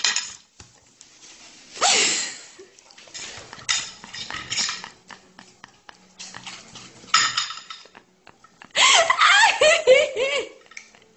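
Cutlery clinking and scraping against a plate in a series of separate strokes. Near the end a person's voice comes in for about two seconds.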